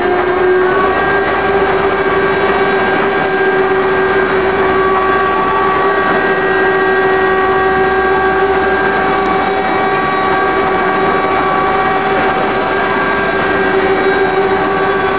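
Eight-spindle rotary-axis CNC router carving wooden workpieces: a steady whine from the spindle motors over the rushing noise of the bits cutting wood.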